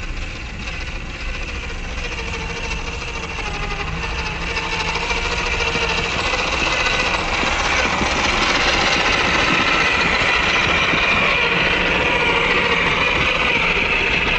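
WPL C74 RC crawler's electric motor and gear drivetrain running as the model drives through snow, a steady mechanical whir that grows louder through the first half as it comes close, then holds.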